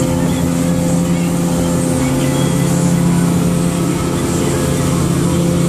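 Twin Mercury 200 hp outboard motors on a Pro-Line 2610 running at steady cruising speed, a constant drone. Wind and rushing water from the hull and wake run under it.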